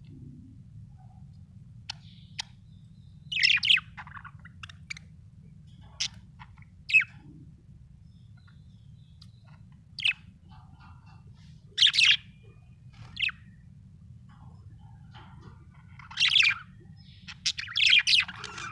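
Pet budgerigar chirping in short, scattered bursts of high chirps a second or a few seconds apart, busiest near the end, over a faint steady low hum.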